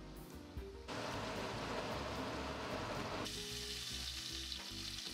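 Breaded cube-steak cutlets sizzling as they fry in hot oil in a skillet, the sizzle growing louder about a second in and turning to a higher hiss near the middle. Background music with a steady low beat plays underneath.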